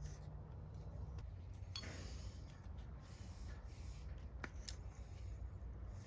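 Small handling sounds of hand work on electrical wiring: a brief rustle about two seconds in and a sharp click about halfway, over a steady low hum.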